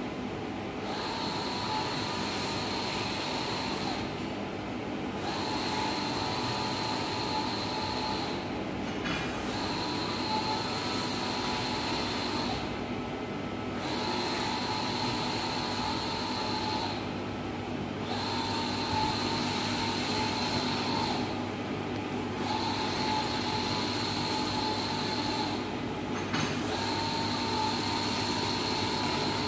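Wide-format inkjet banner printer running a print job: the print-head carriage whirs across the media in long passes, with a short break about every four seconds, over a steady hum from the machine.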